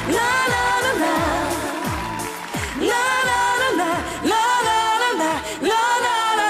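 A live pop song: a group of vocalists singing a wordless «na-la-la» chorus, with a deep sound sliding down in pitch about twice a second underneath.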